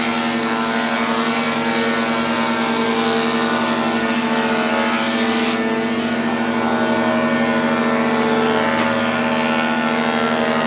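Grigio single spindle moulder running steadily with a constant droning hum while shaping wooden moulding strips.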